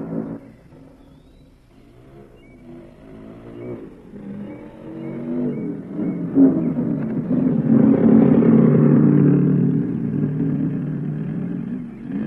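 Motorcycle engine coming closer, growing louder to its loudest about eight to ten seconds in, then fading as it passes and moves away.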